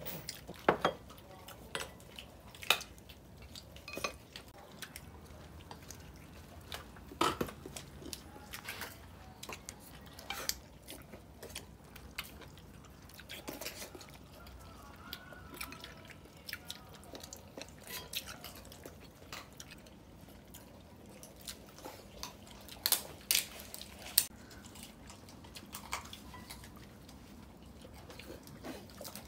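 People eating at a table: chopsticks clicking and clinking against porcelain bowls, and chewing on stewed goose meat. The clinks come scattered and sharp, a few louder ones near the start and near the end.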